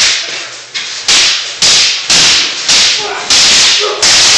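Wooden fighting sticks striking in a fast sparring exchange: a run of about ten sharp cracks, roughly two a second, each with a short echo off the garage walls.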